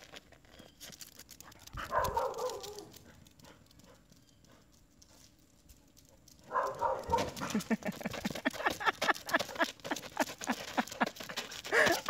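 A dog playing with a rubber toy, giving a short burst of noise about two seconds in, then from about halfway a fast, rapid run of short grunting growls, several a second.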